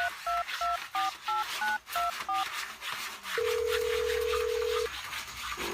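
Telephone keypad dialling: about eight short two-note touch-tone beeps, roughly three a second, followed a second later by a single steady phone tone about a second and a half long, over a constant hiss.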